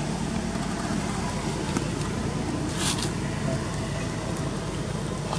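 Steady outdoor background noise with the low hum of a motor vehicle engine or road traffic, and a short hiss about three seconds in.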